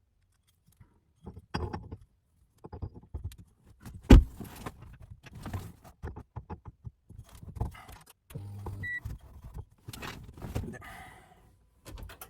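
Irregular clicks, light clatter and rustling of small metal and plastic parts and wiring being handled, with one sharp knock about four seconds in.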